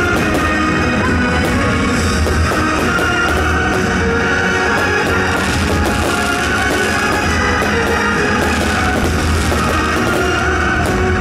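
Loud rock music with guitar and drums.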